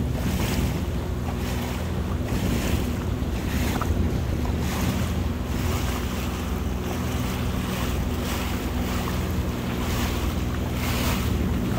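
Sea-Doo Fish Pro personal watercraft engine running steadily at a constant low speed, with wind noise on the microphone and water washing around the hull.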